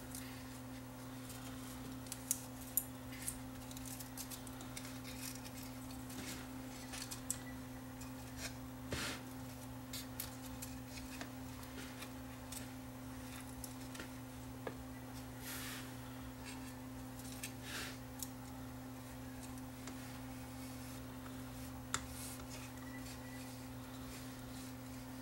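Small handling sounds of an opened 8-track tape cartridge being spliced by hand: scattered light clicks of plastic parts and a few short snips and scrapes of scissors and tape. A steady low electrical hum runs underneath.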